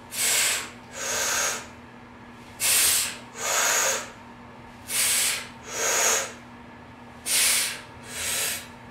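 A person breathing hard through the mouth in time with four resistance band chest press reps: four pairs of loud, hissing breaths, each pair a breath in and a breath out, about every two and a half seconds.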